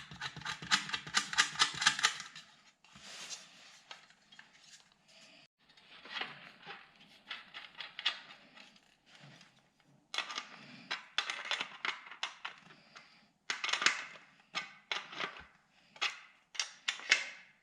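Rapid clicking and rattling of small parts being handled and fitted while tail lights are put together in their housings. It comes in bursts of a second or two with short pauses between.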